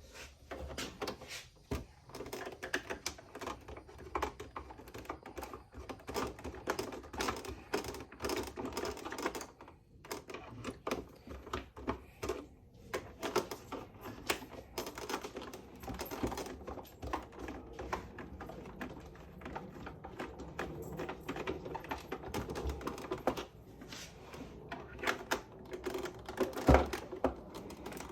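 Dense, irregular clicking and light rattling of small hard tools and plastic parts being handled, with two short pauses a third of the way in.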